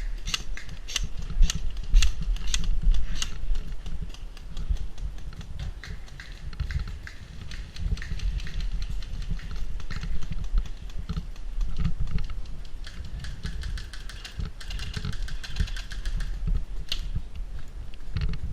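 Airsoft guns firing in semi-auto: a string of sharp pops, about two to three a second in the first few seconds, then fainter, scattered ones, over a low rumble of wind and movement on the microphone.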